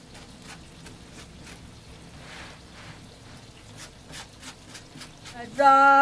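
Faint, scattered clicks and taps over a quiet background. Near the end a man's voice breaks in loudly, beginning a song with a long held note.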